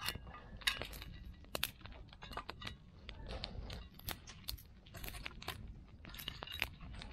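Campfire of burning-down wood crackling, with sharp irregular pops and snaps several times a second over a low steady rumble.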